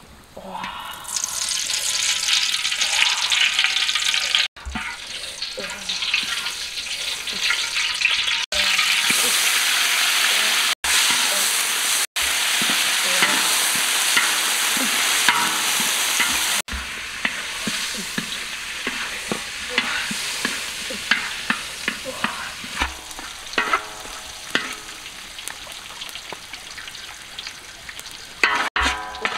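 Chopped herbs and stalks sizzling in a large metal wok over a wood fire, stirred with a metal spatula that scrapes and clicks against the pan. The sizzle starts loud about a second in and eases after the middle, leaving the spatula clicks more prominent.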